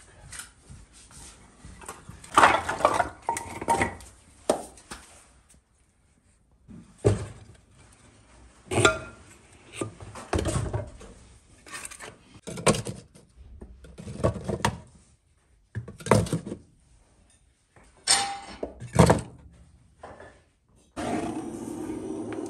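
Split firewood knocking and clattering in a series of separate bursts as pieces are dropped and stacked into a brick stove's firebox. Near the end a handheld butane gas torch is lit and hisses steadily.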